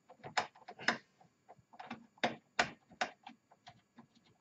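Irregular sharp clicks and taps of small hard parts in a Roland D-50 synthesizer's keyboard assembly being worked into place by hand, with a part that resists before it seats.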